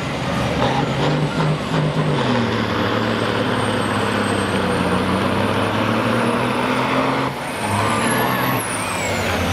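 Diesel semi truck engines revving in short pulses, then pulling hard together under full throttle with the engine note climbing and a high whistle rising above it. About seven seconds in the engines ease off and the high whistle falls away.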